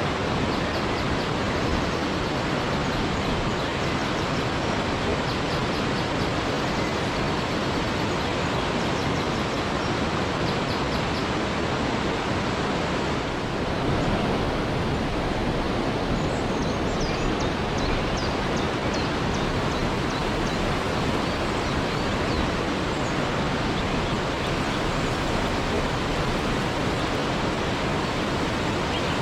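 Waterfall: a steady, even rush of falling water, with faint high chirps about halfway through.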